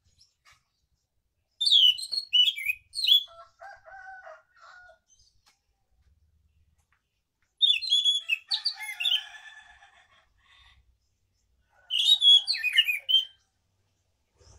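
Caged anis macan thrush singing three bursts of rapid, varied song a few seconds apart, each opening with high sweeping notes, the first two running on into lower notes.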